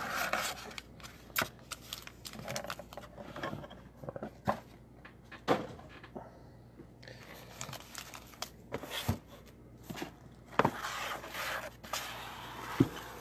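Hands handling foil-wrapped trading card packs and cardboard card boxes on a table: scattered crinkles of the wrappers and light knocks of packs and boxes being set down, with a quieter stretch about halfway through.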